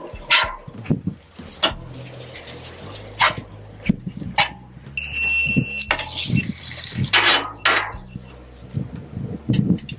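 Metal spatula scraping and clacking on the steel griddle top as shallow-fried egg foo young patties are slid under and lifted off, in a run of irregular scrapes and knocks. A brief, steady high tone sounds about five seconds in.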